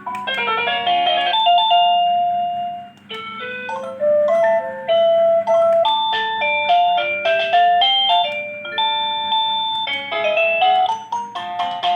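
Wireless doorbell receiver playing its electronic chime tunes, melodies of simple electronic tones stepping up and down, with a short break about three seconds in before the next tune starts.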